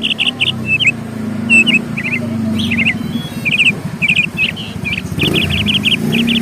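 Small birds chirping in dense runs of short, quick, repeated chirps, several at once, over a steady low hum.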